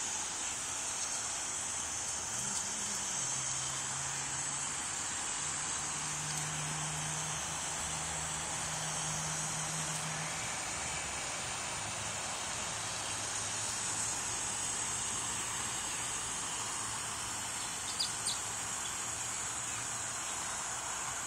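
Steady outdoor background noise: a constant high hiss with a low hum beneath that wavers and fades about halfway through, and two light clicks near the end.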